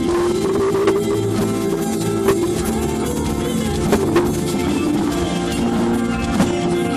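A rock band playing live through a stage sound system: a drum kit with cymbal hits over held guitar chords.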